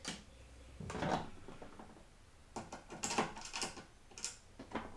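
Small clicks, taps and brief scraping rustles of computer parts and hardware being handled while fitting an M.2 SSD.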